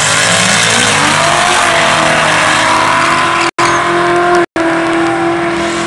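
Drag-race launch: a twin-turbo LT1 V8 in a Buick Roadmaster revving up hard, loud, with its rear tyres spinning and squealing as the car loses traction. The engine note climbs in pitch in the first two seconds. The sound cuts out completely twice, briefly, about midway.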